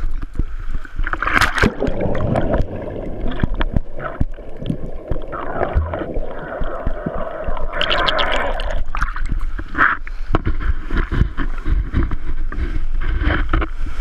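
Sea water splashing and sloshing around an action camera on a pole as it dips in and out of the choppy surface, with irregular knocks and bubbling throughout.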